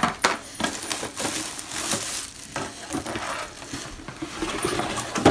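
Packaging being handled as a mini space heater is taken out of its box: irregular crinkling with many small clicks and knocks.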